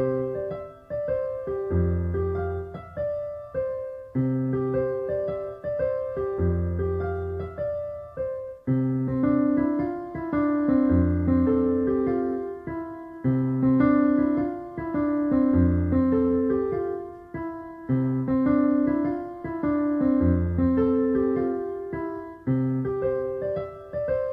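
Background piano music: a gentle keyboard piece of repeating chords over low bass notes, each note struck and fading.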